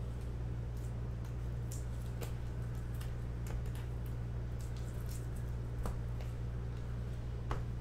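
Trading cards being handled and set down on a table: scattered light clicks and taps over a steady low hum.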